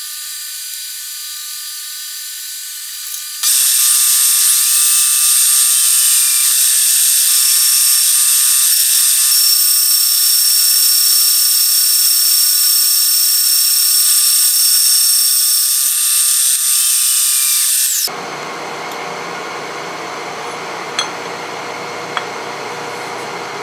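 Milling machine running, then a face mill cutting across a cast aluminum vise jaw. About three seconds in, the sound jumps to a loud, high-pitched whining cut that runs for about fifteen seconds. It stops while the machine runs on, with a couple of light clicks near the end.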